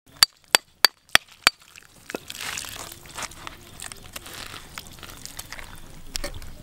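Five sharp, ringing knocks about a third of a second apart, then a knife blade cutting down through a green jackfruit's thick rind and pulp: an uneven crackling rasp with small snaps.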